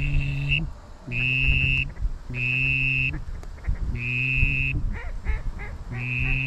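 Goose-like honking: five long, flat-pitched honks evenly spaced about a second and a half apart, with a few short chirps between two of them, over wind rumble on the microphone.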